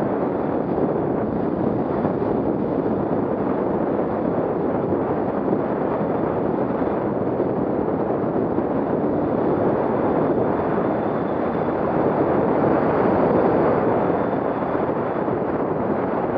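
Dirt bike running along a trail, its engine blended with wind buffeting the onboard camera microphone into a steady noise that swells slightly near the end.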